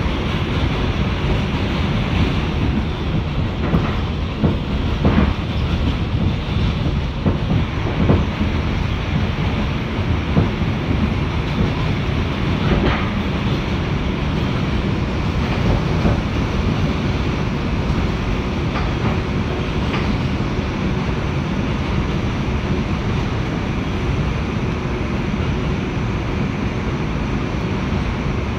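A New York City Subway 2 train running on elevated track, heard from inside the car: a steady rumble of wheels and running gear, with now and then a sharp clack as the wheels pass over rail joints.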